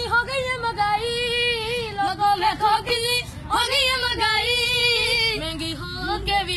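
A boy singing unaccompanied in a high voice, holding long notes with wavering ornaments.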